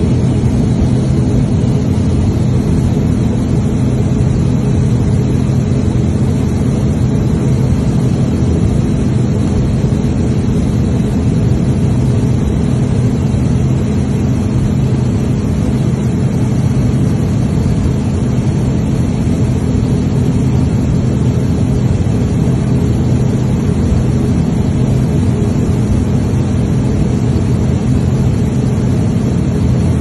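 Turboprop airliner's engine and spinning propeller running steadily on the ground, heard from inside the cabin as a loud, even drone with a constant low hum.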